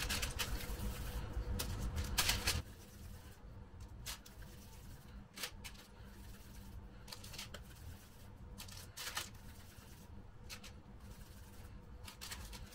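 Hands rolling small balls of yeast dough and setting them down on parchment paper on a baking tray: soft rustles of the paper and light taps. It is busier for the first couple of seconds, then thins to a soft rustle or tap about once a second.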